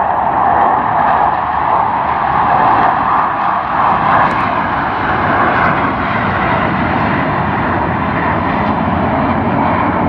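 Navy jet aircraft flying past with loud, steady jet-engine noise.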